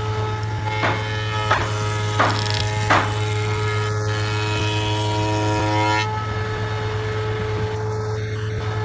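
Spindle moulder (shaper) with a power feeder running, its cutter working the edge of a hardwood beam: a steady hum with a steady whine over it, and four short rasps in the first three seconds. About six seconds in, the cut ends and the whine drops away, leaving the machine running with its hum.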